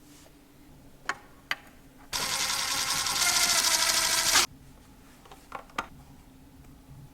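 A small power tool whirring for a little over two seconds and stopping abruptly, after two sharp clicks about a second in.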